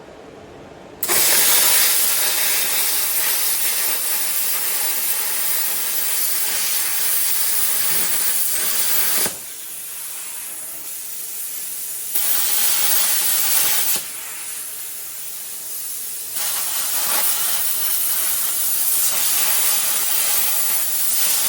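YesWelder CUT-55DS plasma cutter cutting through a 5/8-inch grade 10 bolt at 45 amps, a loud steady hiss starting suddenly about a second in. It falls quieter twice for a few seconds each and then picks up again.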